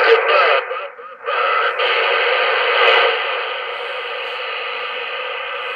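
A Sears Roadtalker 40 SSB CB radio's speaker hissing with receiver static. The hiss drops out briefly about a second in, then settles to a steady hiss.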